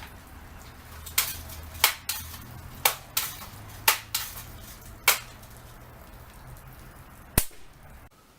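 A series of about eight sharp knocks or clicks at uneven intervals, some in close pairs, over a faint low hum that stops near the end.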